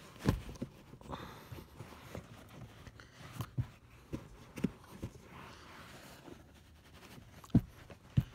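Irregular soft thumps and rustling from a carpet floor mat being pushed and patted into place in a car footwell, with a sharper knock just after the start and two more near the end.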